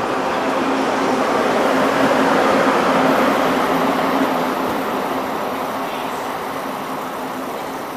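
TGV high-speed train running past: rolling noise with a steady low hum. It swells to its loudest about two to three seconds in as the coupled middle power cars go by, then fades as the rear power car passes.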